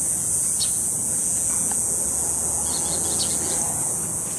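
Steady high-pitched insect chorus, unbroken throughout, with a few faint short bird chirps over it.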